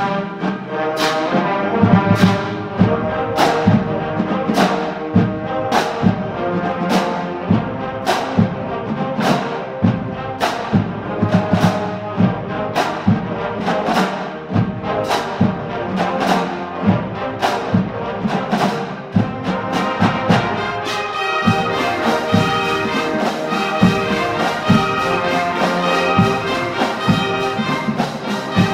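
Marching band brass section and drumline playing a pop tune arrangement: sustained brass chords over a steady beat of drum and cymbal hits. About 21 seconds in, the percussion thickens into a continuous cymbal wash under the brass.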